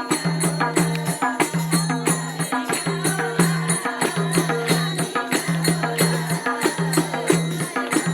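Music with a steady beat: sharp percussion strokes about four a second over a low note that repeats about twice a second.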